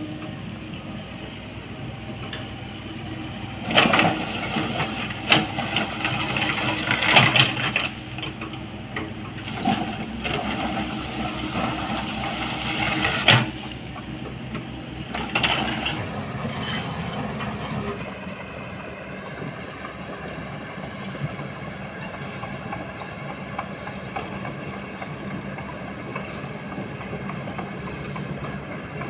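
Diesel engines of heavy earthmoving machines, a mini excavator and a bulldozer, running steadily while working loose stone. Loud clanks and scrapes come several times in the first half, and a thin high whine joins in the second half.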